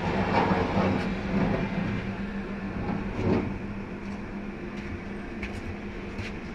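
A steady low mechanical hum with a few scraping knocks. The loudest come just after the start and about three seconds in, and light sharp clicks follow near the end.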